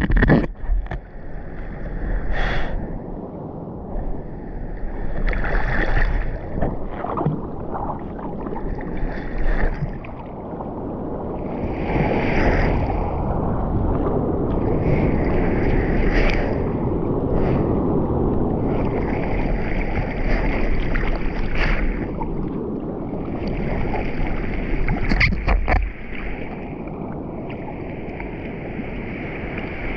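Seawater sloshing and splashing around a bodyboard and a camera held at the water's surface as the rider paddles, over the rush of breaking surf. A few sharper splashes stand out, the loudest right at the start.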